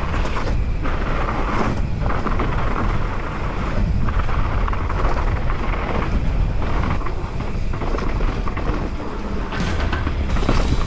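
Mountain bike riding fast downhill over gravel and rock: steady wind noise on the camera microphone, with tyre rumble and rattle from the rough trail.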